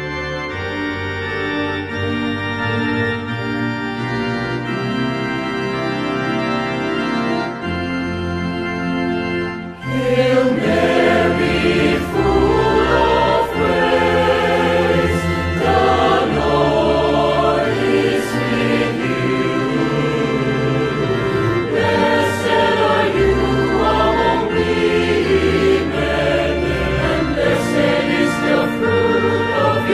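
Devotional music: an organ holding slow chords, joined about ten seconds in by a choir singing over it, louder from there on.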